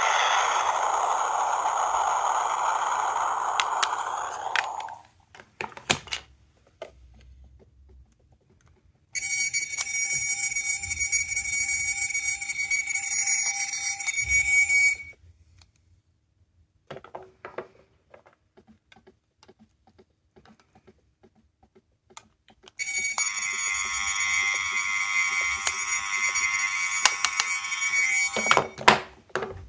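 Miniature sound-making capsule toys played in turn through their tiny speakers: a few seconds of a hissy electronic sound, then two stretches of about six seconds each of steady electronic ringing tones like an alarm or ringtone, with small plastic clicks and handling in the gaps as the buttons are pressed.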